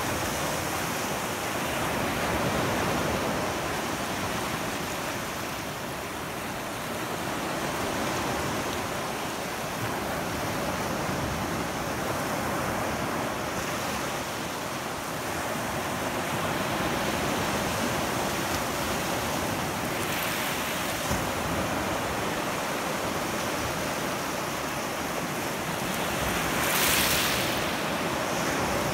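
Small waves washing in over a bed of shells at the water's edge: a steady wash that swells and eases, with one stronger, hissier wash near the end.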